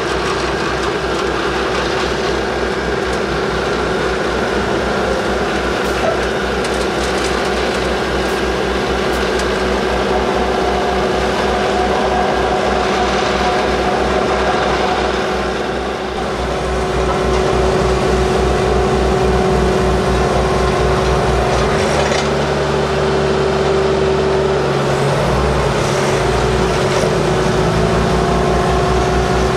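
Heavy diesel engines of asphalt delivery trucks and paving machinery running steadily, with a steady whine over the engine note. The engine sound dips briefly about halfway through, then picks up again with a changed note.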